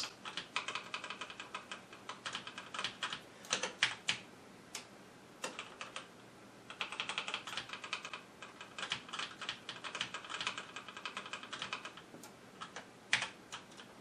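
Computer keyboard keys being pressed in quick, irregular flurries during gameplay combat, with a short lull about six seconds in.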